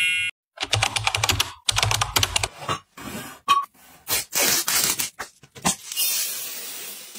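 A short sparkly chime ends at the start. Then a plastic bottle of Lenor scent booster beads is handled on a wooden counter with runs of clicks and rattles. From about four seconds in the beads pour into a glass jar with a dense pattering hiss that fades near the end.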